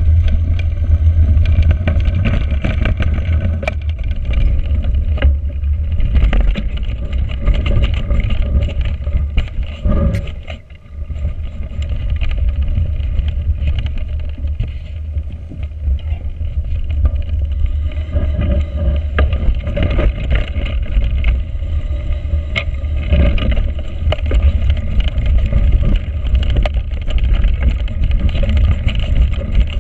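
Wind buffeting a handlebar-mounted GoPro's microphone as a mountain bike rolls over a frozen, leaf-strewn forest trail, with the noise of its 29x2.1 Schwalbe Smart Sam tyres and scattered knocks from the bike. The rumble eases briefly about ten seconds in.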